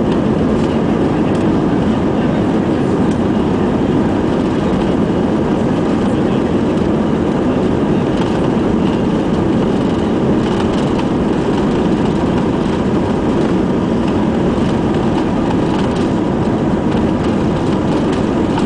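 Cabin noise of an Airbus A320 moving along the runway on its take-off run: the jet engines and the rolling of the aircraft, heard from inside as a loud, steady noise with no break.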